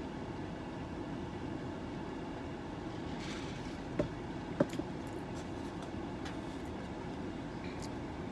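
Steady background noise inside a car, the hum of the engine and air conditioning, with two short clicks about four seconds in.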